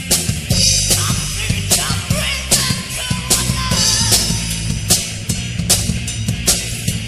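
Heavy metal band studio recording: drum kit with regular cymbal crashes under electric guitars and bass guitar. A wavering melodic line rides above the band for a couple of seconds in the middle.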